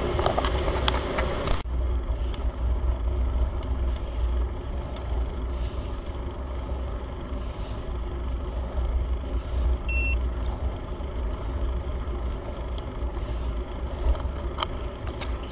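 A road vehicle driving up a mountain road: a steady low rumble of engine and road noise. A short electronic beep sounds once about ten seconds in.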